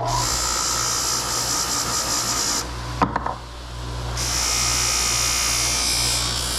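Electric power tool motor running steadily with a high hiss, which thins out briefly about three seconds in with a few sharp clicks before running on.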